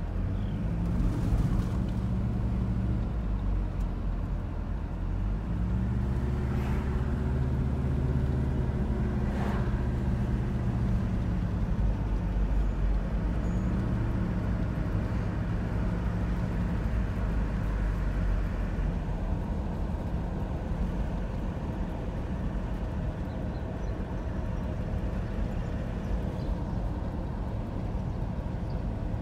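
Car engine and tyre noise heard from inside the cabin while driving, the engine pitch rising and falling several times as the car speeds up and slows. Tyres knock over a railroad grade crossing about a second in.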